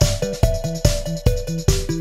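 Electronic background music with a quick, steady beat and a repeating bass and melody line.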